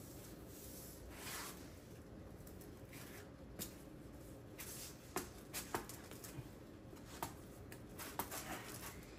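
Faint light taps and clicks of hands pressing and adjusting a ceramic floor tile as it is set, scattered through the second half, with a soft rub near the start, over a low steady hum.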